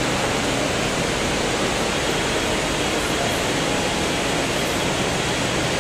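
Heavy rain, a loud steady hiss that drowns out other sounds.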